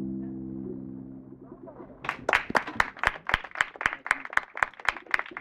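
The final chord of an acoustic guitar and double bass rings on and fades out over the first second or so. About two seconds in, applause starts: a small audience clapping, with the individual claps clearly apart.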